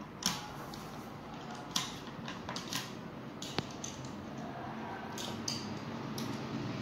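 About half a dozen light, sharp clicks and taps of a small screwdriver and screws on the plastic housing of a Tefal steam iron being put back together. A steady low hum runs underneath.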